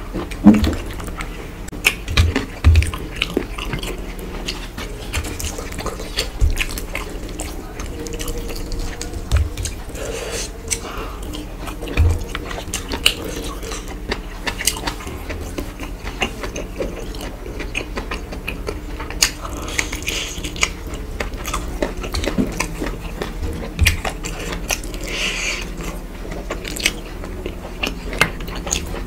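A person chewing mouthfuls of rice and mutton curry eaten by hand, with frequent short sharp clicks and small knocks over a steady low hum.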